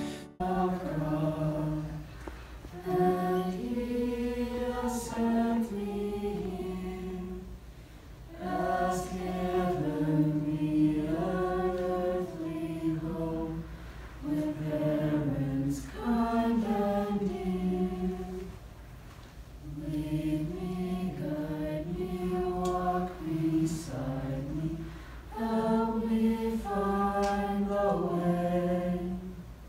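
A small group of children's and adult voices singing together at a microphone, in phrases of a few seconds with short pauses between them, over a steady low hum.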